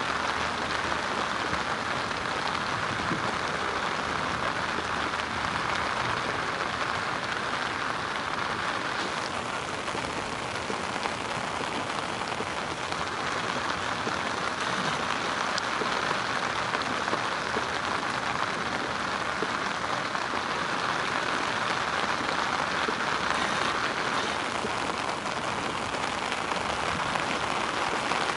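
Rain falling on a river's surface: a steady, even patter of drops hitting the water.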